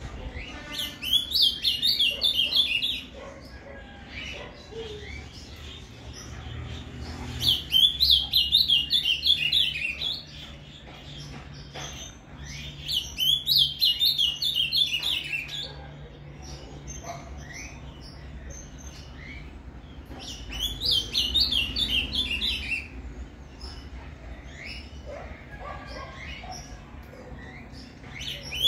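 Male ultramarine grosbeak (azulão) singing the 'Paraná' song type: four quick phrases of rapid, high, warbled notes, each two to three seconds long, with pauses of several seconds between them.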